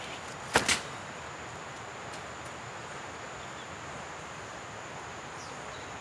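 Two sharp snaps in quick succession about half a second in, over a steady forest hiss with a thin, high insect note.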